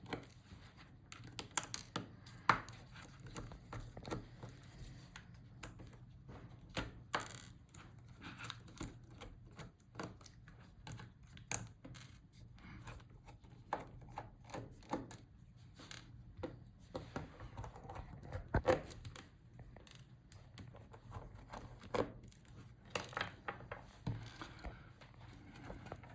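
Irregular small clicks, taps and scrapes of screws, a screwdriver and plastic laptop parts being handled as a laptop screen's hinges and rails are unscrewed.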